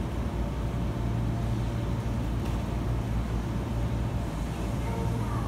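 Hankyu 9000-series electric train standing at the platform, its on-board equipment giving a steady low hum over a low rumble.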